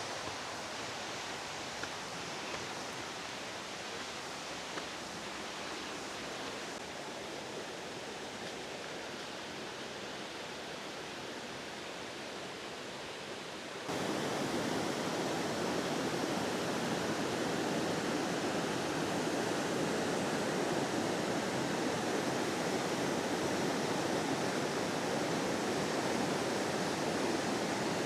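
Steady rush of flowing water from a stream or waterfall. About halfway through it jumps suddenly louder and fuller.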